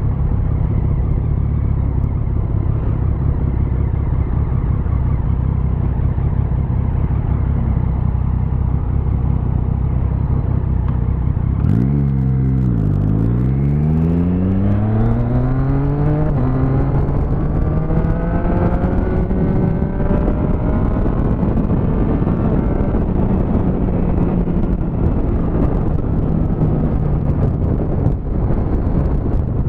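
Motorcycle engine idling steadily, then about twelve seconds in the rider pulls away: the engine note dips, then rises over several seconds as it accelerates, and settles into a steady cruising drone with wind noise on the microphone.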